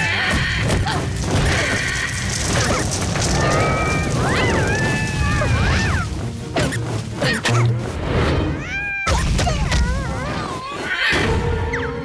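Cartoon soundtrack: lively music mixed with slapstick sound effects, with several sharp thuds and crashes and quick gliding squeaky tones.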